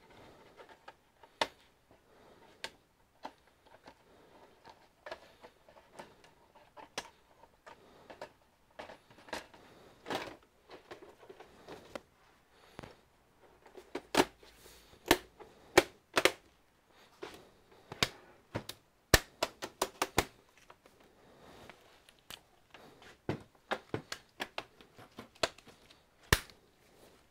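Irregular sharp clicks and taps of plastic and metal computer parts being handled and fitted during reassembly of an all-in-one PC, sparse at first and coming thick and fast in the second half.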